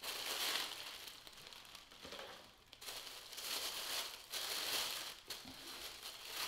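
Packaging crinkling and rustling in the hands as a clutch is unwrapped: a clear plastic bag and tissue wrapping paper, in several uneven bursts.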